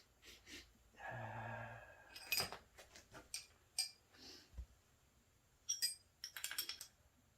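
Small metal air-hose fittings clinking and clicking as a quick-disconnect coupler is fitted to a hose: a scattered run of short, sharp metallic clicks, some with a slight ring.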